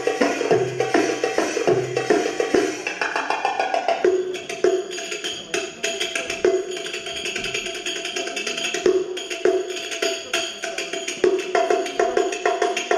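Belly-dance music for a tabla solo: an Arabic goblet drum (tabla, darbuka) played in fast, dense rolls and accented strokes. A steady held note joins under the drumming about four seconds in.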